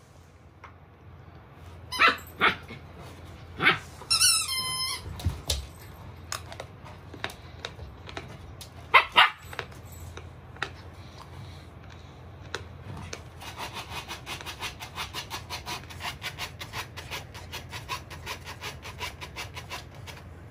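Samoyed puppy barking sharply a few times, with a high whine between the barks. From the middle on, its front paws scrape rapidly at the fabric of a raised mesh dog cot as it digs, about five scrapes a second.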